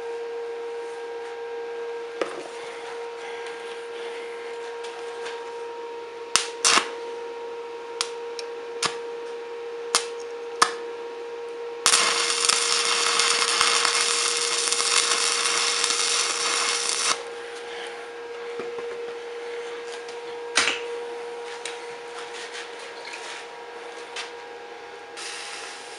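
Electric arc welding a small steel cutter into a flat steel bar: a loud, even crackling hiss from the arc that starts about halfway through and lasts about five seconds, then stops abruptly. A few sharp clicks and taps come before and after it, over a steady hum.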